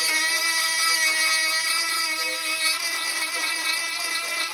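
Ryobi 18V cordless rotary tool running at high speed, its bit grinding into a plastic part, with a steady high whine that wavers a little as the bit bites.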